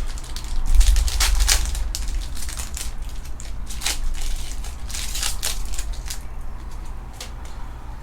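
Plastic-foil trading-card pack wrapper being torn and crumpled by hand: irregular crinkling and crackling, busiest in the first six seconds.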